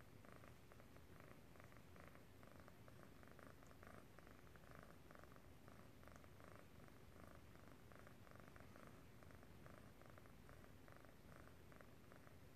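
Domestic cat purring faintly while one cat licks the other's head, with soft licking strokes repeating a few times a second.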